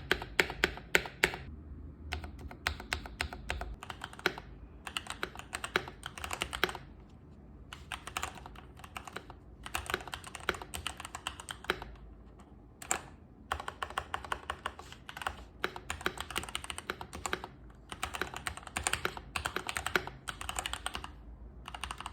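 Typing on a Keychron C1 mechanical keyboard modded with neoprene foam padding in the base and on the PCB plate, plus painter's tape: rapid keystrokes in bursts of a second or two, with short pauses between them.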